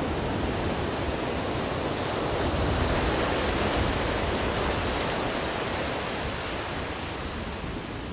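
Shallow surf washing up a sandy beach: a steady rush of water that swells about three seconds in and then eases off.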